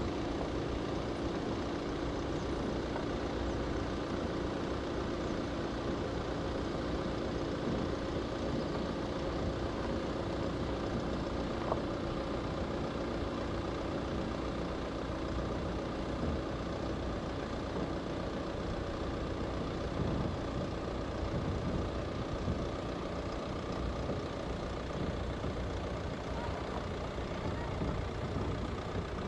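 Land Rover Discovery Sport engine running at low revs as the SUV creeps down a steep sandy slope under hill descent control, a steady low rumble. A single sharp click about twelve seconds in.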